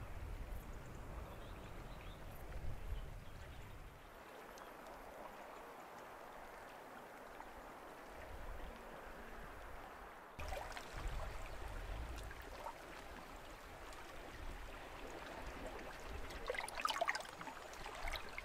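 Calm sea gently washing over a rocky, pebbly shore: a faint, steady water wash, with a low rumble that comes and goes.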